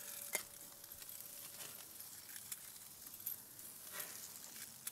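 Sardines on bamboo skewers sizzling faintly over a charcoal grill, with scattered sharp ticks and crackles.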